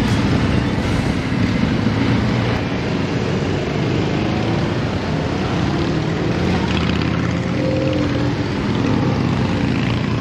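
Motorcycle engine running steadily under way, a dense low rumble with no breaks.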